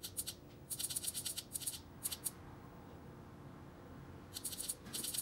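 Several short bursts of rapid, fine clicking from the push button of a CT22 motorcycle display being worked by a thumb to step through a setting.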